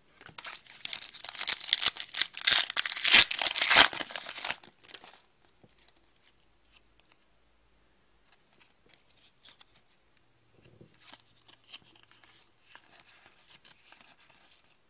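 A shiny plastic trading-card pack wrapper being torn open and crinkled for about five seconds. After that comes faint rustling as the cards inside are thumbed through.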